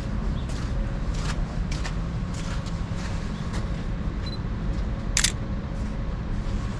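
A camera shutter clicks once, sharply, about five seconds in, over a steady low rumble of city traffic. Faint footsteps tick along at about two a second.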